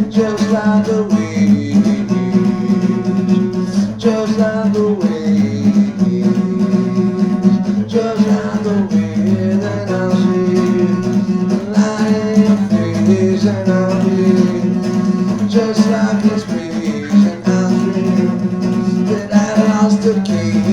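Background music: acoustic guitar playing with a singing voice.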